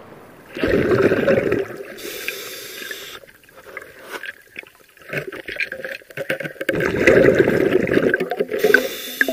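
Scuba diving regulator heard underwater: two long rumbling bursts of exhaled air bubbles, about a second in and again near the end, each followed by a short hiss of the diver breathing in.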